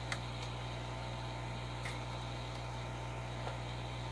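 A few faint, light clicks of steel tweezers against the metal reballing stencil and Kapton tape as the reballed chip is peeled off, over a steady low hum.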